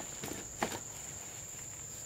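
Insects trilling steadily at a high pitch, with a couple of short knocks or rustles about half a second in.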